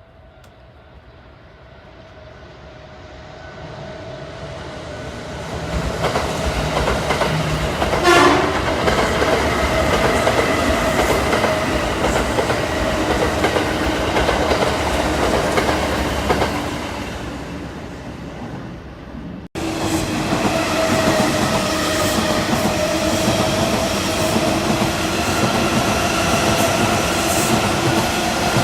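Kintetsu electric train approaching and passing close by, wheels clattering over the rail joints, with a brief horn blast about eight seconds in; it fades away, and after an abrupt cut another train is heard passing.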